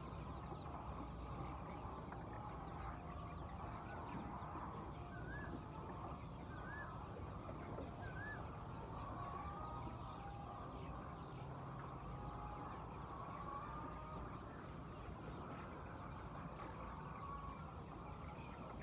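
A flock of laying hens clucking continuously, many calls overlapping, with a few short higher chirps a little before the middle. A steady low hum runs underneath.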